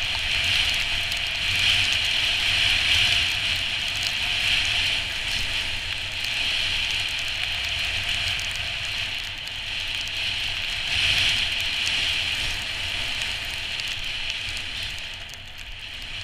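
Skis sliding over snow: a steady scraping hiss that swells and eases, with a low wind rumble on the camera microphone, growing quieter near the end.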